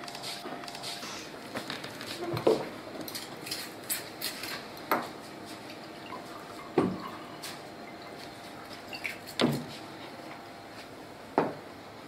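A glass bottle and a drinking glass handled on a bar counter: several separate knocks and clinks spread through, with liquid poured from the bottle into the glass.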